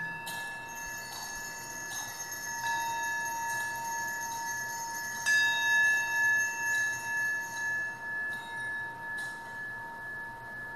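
Altar bells rung at the consecration, marking the elevation of the host: a set of small bells struck three times, a couple of seconds apart, the third strike the loudest, each leaving a long, wavering ring.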